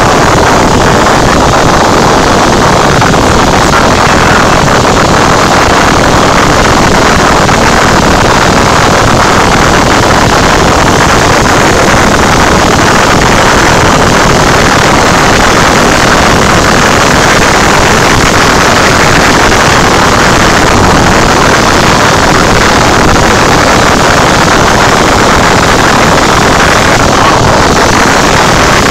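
Cessna 172 in flight heard from inside the cabin: the piston engine and propeller drone loud and steady, mixed with the rush of air past the airframe.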